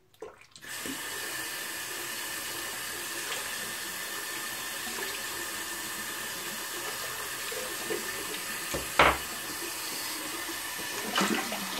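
Bathroom tap running steadily into a sink while a freshly shaved head is rinsed, with one sharp knock about nine seconds in.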